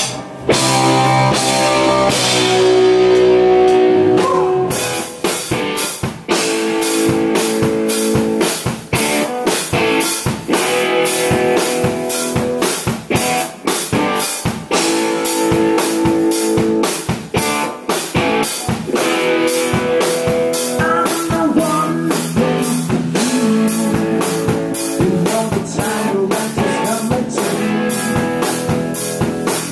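Live rock band playing: electric guitars and bass hold ringing chords for the first few seconds, then the drum kit comes in with a steady beat and the band plays on. A male singer's voice joins over the band.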